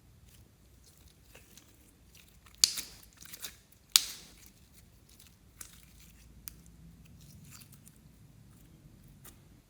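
Slime being worked by hand, with scattered sharp crackling pops and clicks, the two loudest about two and a half and four seconds in.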